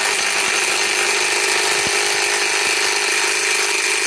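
Flex 1451 mid-torque cordless impact wrench, on a 3.5 stacked-lithium battery, hammering without a break as it tightens a one-and-a-half-inch hitch-ball nut.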